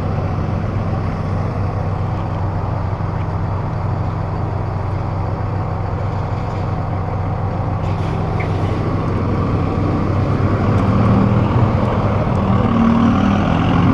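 Road traffic: motor vehicle engines running steadily, getting louder over the last few seconds as traffic passes close by.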